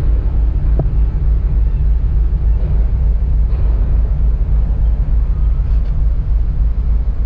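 An engine running steadily with a loud, deep rumble that fades out just after the end.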